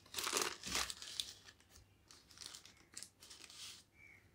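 Paper and plastic takeaway bags crinkling and rustling as they are handled, loudest in the first second or so, with smaller rustles later that die away near the end.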